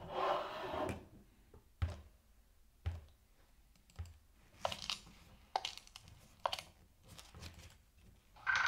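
A brief rustle, then a series of light, sharp taps and clicks, about one a second.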